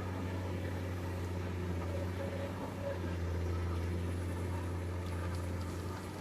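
Diesel engine of heavy earthmoving machinery running steadily with a deep, even hum, swelling slightly about three seconds in.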